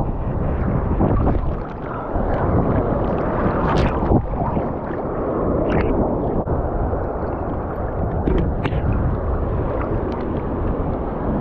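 Ocean surf sloshing and gurgling right at the microphone as waves wash past, with wind buffeting the mic. A few sharp splashes stand out, around four, six and eight and a half seconds in.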